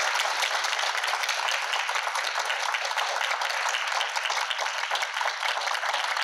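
Audience applauding, a steady mass of hand claps.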